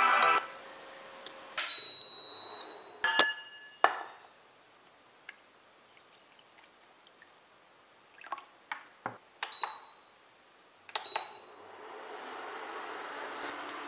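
Electronic beeps and sharp knocks of a steel pan being handled: a held beep near the start, a few knocks, then short beeps near the end. About twelve seconds in, a Havells induction cooktop starts heating with a steady whir.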